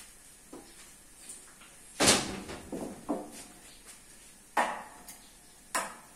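A few sharp kitchen knocks and clatters, like utensils or cookware being set down and handled. The loudest comes about two seconds in, with three more knocks and a few lighter taps after it.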